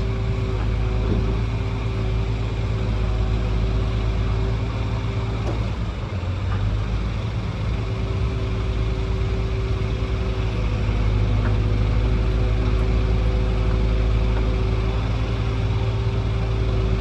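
Excavator's diesel engine running steadily, with a brief dip about six seconds in and a little louder from about eleven seconds.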